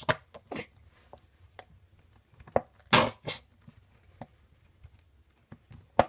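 Squeeze bottle of mayonnaise sputtering as it is squeezed: several short bursts of air and sauce from the nozzle, the loudest about three seconds in.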